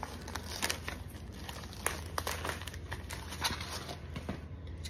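Plastic wrap around packaged raw beef kidney crinkling as it is handled, in faint, scattered crackles.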